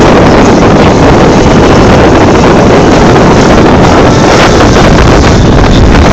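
Steady, loud wind buffeting the microphone on a moving wooden outrigger boat, mixed with the rush of water along the hull and outrigger.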